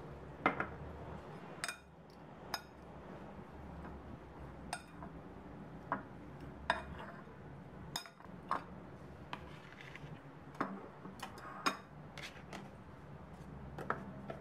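Metal fork clinking and scraping against a ceramic bowl while mashing boiled potato, in irregular separate taps over a low steady hum.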